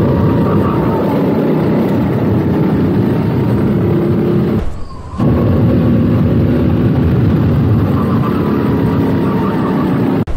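Go-kart engine running hard, heard from onboard the kart. About five seconds in it briefly drops away and its pitch bends before it picks up again, and it breaks off sharply just before the end.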